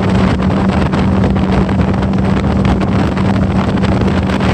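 150 hp Yamaha outboard running hard at speed, holding one steady engine note, with wind buffeting the microphone.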